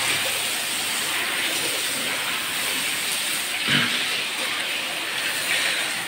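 Water from a hose spraying and splashing steadily onto the shed floor as it is washed clear of cattle dung, an even hiss.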